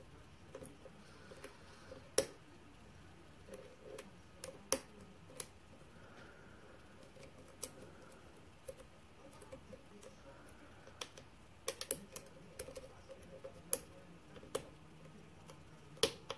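Irregular small metallic clicks and ticks of a hook pick and tension wrench working the pin stacks of a brass mortise lock cylinder during single-pin picking, a few louder clicks standing out.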